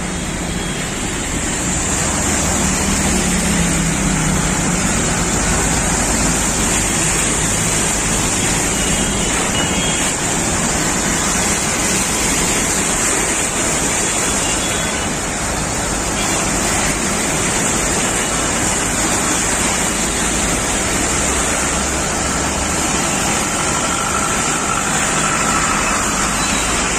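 Road traffic driving through a flooded street: tyres pushing through standing water with a steady rushing splash, mixed with the engine noise of the passing vehicles.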